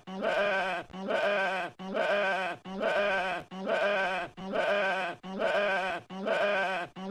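A sheep bleating, the same wavering call repeated over and over about once a second, like a looped sound effect.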